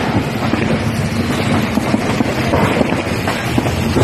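Wind buffeting a phone's microphone outdoors, a loud, steady rumbling noise.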